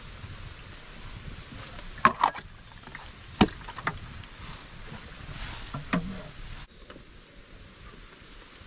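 Steady rain with a wood fire burning in a rock shelter, broken by a few sharp knocks in the middle, the loudest about three and a half seconds in. The background turns suddenly quieter about two-thirds of the way through.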